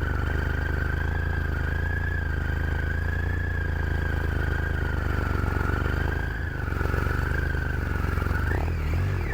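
Motorcycle engine running steadily at cruising speed, with a high steady whine that wavers slightly in pitch over it.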